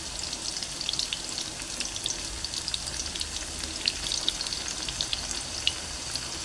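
Garlic and rawon spice paste frying in hot oil: a steady sizzle with many small crackling pops.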